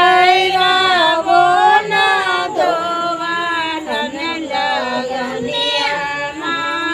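Women singing an unaccompanied devotional folk song, a woman's voice carrying long held notes that glide between pitches.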